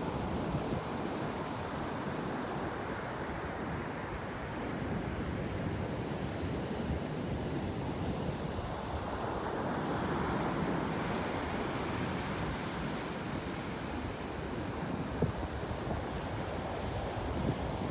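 Ocean surf: waves breaking and washing ashore in a continuous rush that swells and eases, loudest about ten seconds in.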